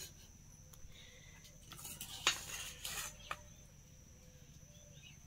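A few light clinks and scrapes of a steel spatula against a kadhai and steel plates as food is served. The sharpest clink comes a little after two seconds in; otherwise it is quiet.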